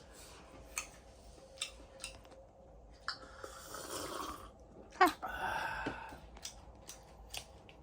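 Close-up chewing and crunching of crunchy shrimp: a run of short sharp crunches with a couple of longer bouts of chewing, the loudest crunch about five seconds in.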